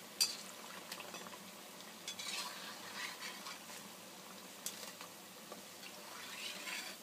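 Steel slotted spoon and wire skimmer scraping and clinking against a black kadai while deep-fried urad dal bhallas are turned and lifted out of hot oil, the oil sizzling underneath. A sharp metal clink just after the start is the loudest sound, with bursts of scraping in the middle and a swell of sizzling near the end.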